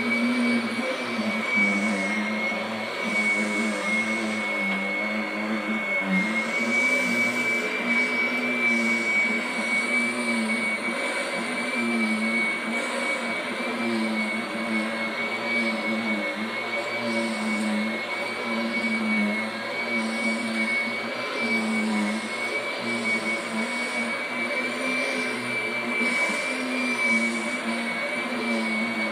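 Kirby vacuum cleaner running steadily: a constant high whine over a lower hum and an even rush of air.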